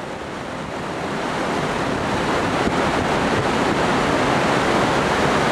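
Sea water rushing and foaming along the hull of a container ship under way, with wind on the microphone. It grows louder over the first two seconds, then holds steady.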